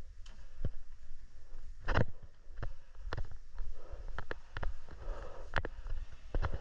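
Footsteps and gear handling: irregular light knocks and clicks over a low rumble, with one louder knock about two seconds in.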